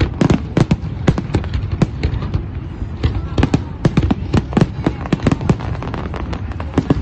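Fireworks display: a continuous barrage of aerial shell bursts, several sharp bangs a second over a steady rumble.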